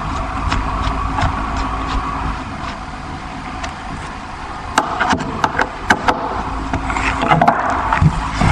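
Power screwdriver motor running steadily as a screw is driven into the ceiling panel, easing off about four seconds in, followed by a string of sharp clicks and knocks.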